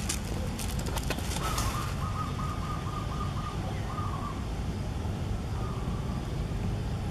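A bird calling a short rapid trill of about eight notes about a second and a half in, with fainter single notes later, over a steady low outdoor rumble. A few sharp clicks sound in the first two seconds.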